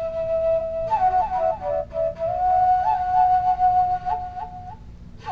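Acrylic bansuri in low G playing a slow solo melody: a held note, then a quick run of ornamented notes, then a long note decorated with small turns that fades near the end.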